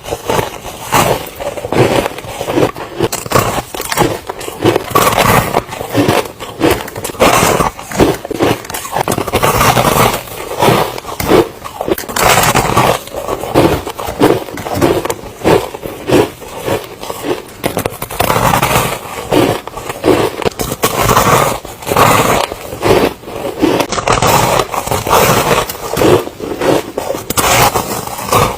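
Soft, crunchy ice being bitten and chewed close to the microphone: a steady run of loud, crackly crunches, about two a second.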